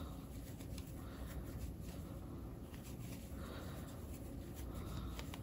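Faint rustling of yarn and light ticks of a metal crochet hook as double crochet stitches are worked, over a low steady hum.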